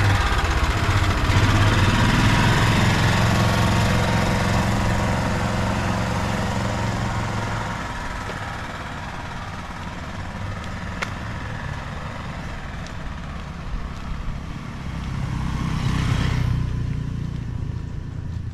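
Motor vehicle engines running close by on a street. One is loud at first and fades away over the first several seconds. Another swells up and then drops off sharply near the end.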